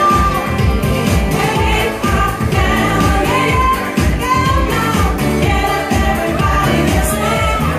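Pop song with a sung vocal melody over a steady dance beat.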